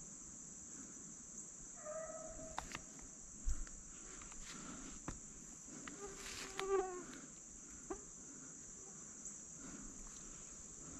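A hound baying twice, a short call about two seconds in and a longer, louder one around six to seven seconds, over a steady high insect drone, with footsteps crunching through dry leaves and the odd twig snapping.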